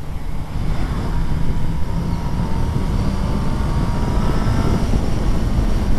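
Suzuki B-King's 1340 cc inline-four, the Hayabusa-derived engine, pulling in second gear with its note rising slowly, under heavy wind rush on the camera microphone.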